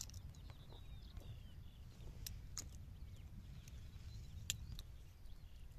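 Quiet shoreline ambience: a low rumble with a few faint bird chirps and three short sharp clicks, two close together about two and a half seconds in and one about four and a half seconds in.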